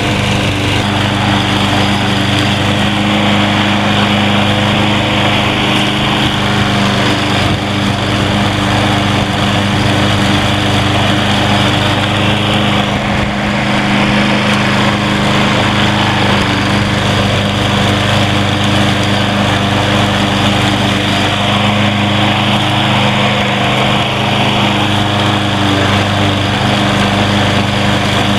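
Troy-Bilt TB230 21-inch walk-behind lawn mower running steadily while mowing grass, its small engine holding an even note.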